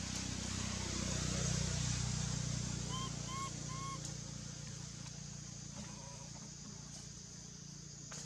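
Outdoor ambience dominated by a low, steady motor hum that swells over the first few seconds and then eases off, under a constant high hiss. Three short chirping calls come a little after three seconds in.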